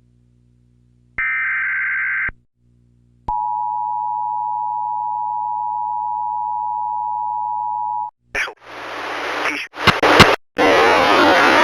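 Emergency Alert System tones: a roughly one-second burst of warbling data tones, a short gap, then the two-tone EAS attention signal held steady for about five seconds. About eight seconds in it cuts off into loud, rising hiss and crackle broken by sharp clicks.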